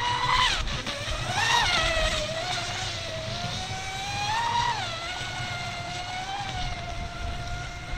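Brushless electric motor of a scratch-built mono RC racing boat (Surpass Hobby 3670 2260kv) whining at speed as it runs across the water. Its pitch climbs with the throttle about a second and a half in and again around four and a half seconds, and holds fairly steady in between.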